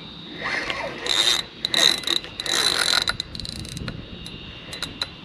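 Fishing reel drag buzzing in several short runs as a hooked fish pulls line off against a loosely set drag, with scattered clicks between the runs.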